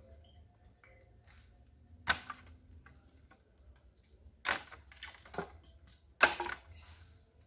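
Dry twigs and sticks cracking as they are handled and laid in a fire pit: a few sharp cracks, the loudest near the end.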